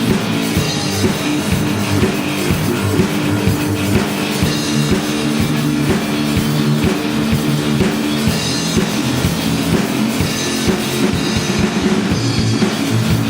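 Live rock band playing: a drum kit keeping a steady beat under guitars.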